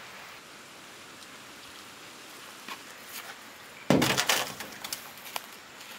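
A metal serving spoon scraping and clinking against a large pan of scrambled egg and seafood. There is a short, loud clatter about four seconds in, followed by a few lighter clicks, over a steady background hiss.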